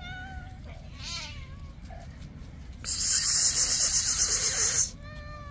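Stray cats meowing as they come running: one meow at the start, a second with a wavering pitch about a second in, and a third starting near the end. The loudest sound is a harsh, even rush of noise, like a hiss, that starts abruptly about three seconds in and cuts off two seconds later.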